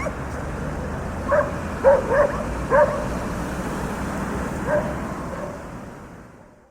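Dogs barking in a quick run of about four barks, then one fainter bark, over steady urban street traffic noise. The whole sound then fades out.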